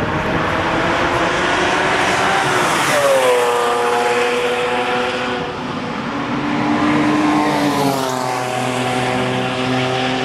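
Two sports cars passing at speed one after the other, engines at high revs; each engine note drops in pitch as the car goes by, about three seconds in and again about eight seconds in, then holds steady as the car pulls away.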